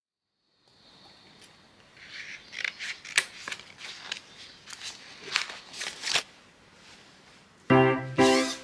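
Scissors snipping, about a dozen sharp cuts over four seconds, with a light rustle of fabric. Piano music comes in near the end.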